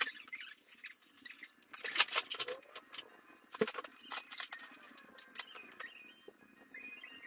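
Scattered clicks, knocks and light clatter of objects being handled and set down, with a few short high squeaks.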